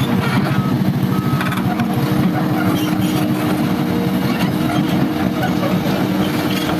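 Excavator's diesel engine running steadily, with a fast low pulsing beat.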